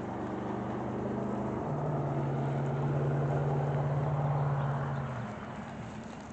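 A motor vehicle's engine humming steadily, swelling and then fading as it passes, its pitch stepping up once partway through.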